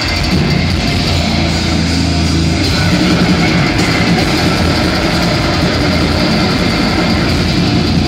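Heavy metal band playing live, loud: distorted electric guitars, bass and drums in a dense, unbroken wall of sound.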